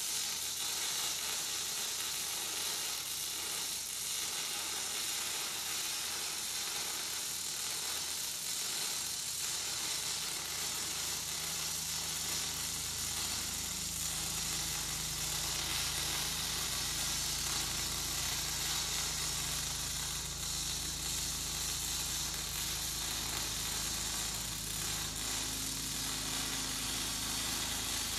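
Electric arc welding a steel wheel centre into a tractor rim: the steady, continuous crackling sizzle of the arc as a bead is run around the joint.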